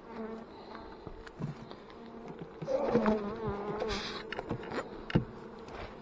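Honey bees buzzing around an opened hive, a steady hum with one bee passing close by with a wavering pitch about three seconds in. A few sharp knocks, the loudest about five seconds in.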